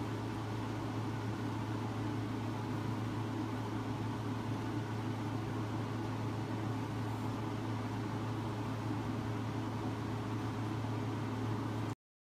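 Steady low hum with a hiss over it, unchanging: room tone picked up by the microphone. Near the end the sound cuts out abruptly.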